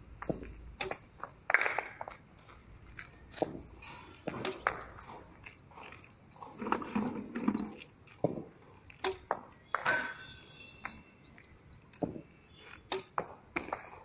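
Sharp, irregular knocks of a tennis racket striking practice balls to feed batting practice, with birds chirping in short runs.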